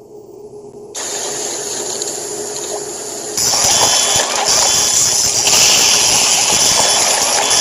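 Loud rushing, hissing noise over a steady low hum, stepping up in loudness about a second in and again about three seconds in.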